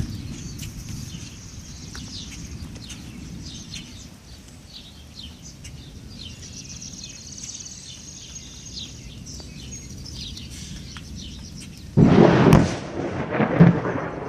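Birds chirping over a low, steady rumble, then about twelve seconds in a sudden loud thunderclap from a nearby lightning strike, rumbling on after the crack.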